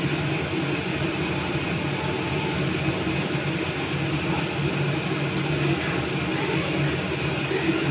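Steady mechanical drone with a low hum underneath, even throughout, with no distinct knocks or clatter.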